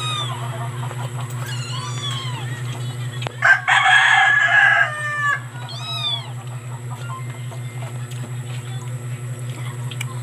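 A rooster crowing once, loud, starting about three and a half seconds in and dropping away at the end, with a few shorter arched chicken calls before and after it. A steady low hum runs underneath.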